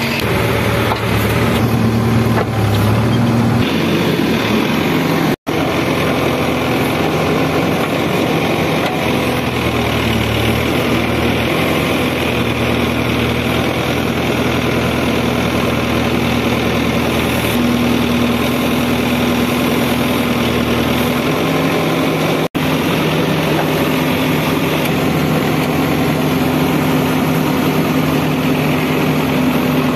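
Case 770EX backhoe loader's diesel engine running steadily while the backhoe digs soil, its engine note stepping up and down a few times.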